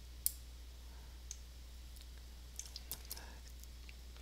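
A few faint computer mouse clicks, the sharpest one just after the start and a small cluster a little before the three-second mark, over a steady low electrical hum.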